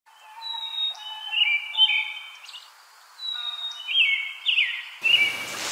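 A songbird singing two phrases of clear, high whistled notes with quick downward slides, separated by a short pause. Near the end a hissy, rustling sound comes in under a last chirp.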